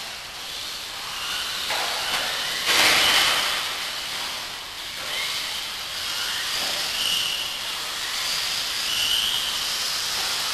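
Vintage electric 1/10 off-road RC buggies running on an indoor track: high motor whines rising and falling over a steady hiss, loudest about three seconds in.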